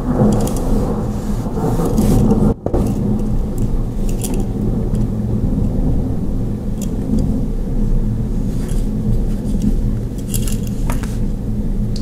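A steady low rumble throughout, with scattered light metallic clicks and jingles as a Swiss Army knife with an aluminium Alox handle and a steel split keyring is turned over in the hands. The sound cuts out briefly about two and a half seconds in.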